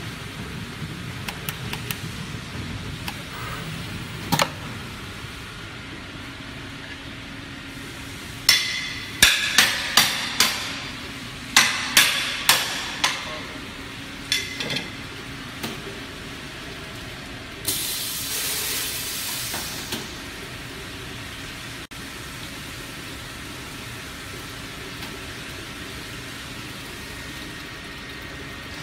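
PVC coaster production machinery running with a steady hum. About a third of the way in comes a run of a dozen or so sharp clacks and knocks over some six seconds, and later a hiss of air lasting about two seconds.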